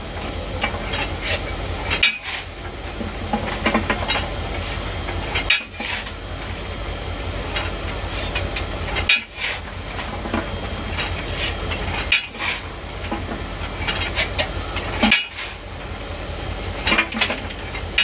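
Coal being shovelled into a steam locomotive's firebox: a metal shovel scraping and clattering, scoop after scoop about every three and a half seconds, over a steady low rumble from the locomotive.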